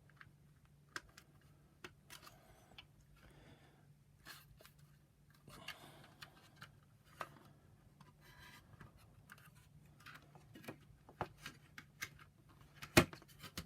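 Plastic parts of a Shark vacuum power nozzle being handled and fitted together by hand: scattered small clicks, rubs and scrapes, with one sharp click near the end.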